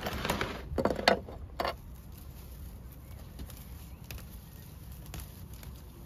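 A bushy herb plant's foliage and roots rustling and crackling as it is pulled up out of a pot of soil, in a few short bursts in the first two seconds. After that, only a low steady background rumble with a few faint ticks.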